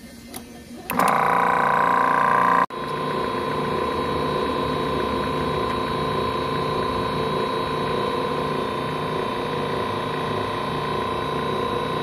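Refrigerant recovery machine clicking on and its compressor starting about a second in, then running steadily with a rhythmic pulsing hum. It is drawing refrigerant vapor out of the AC system's low side.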